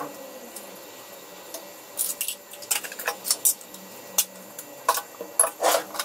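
Metal spoon scraping and tapping cream cheese out of a plastic tub into a stainless steel bowl: a string of irregular clicks and clinks.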